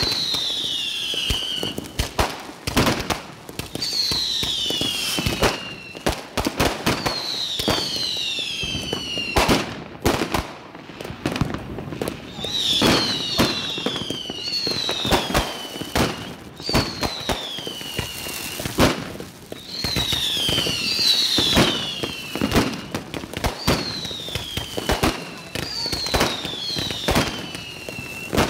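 Mascletà-style firecracker barrage: bangs going off irregularly in quick succession, with whistling fireworks again and again, each whistle falling in pitch over about a second and a half, often two overlapping.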